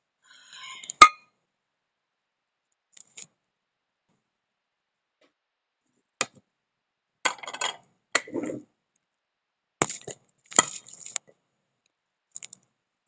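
Handling noise from a phone being picked up, moved and set down, with scattered clicks, knocks and a few clinks of objects in a kitchen. The loudest is a single sharp knock about a second in, and the others come in short clusters.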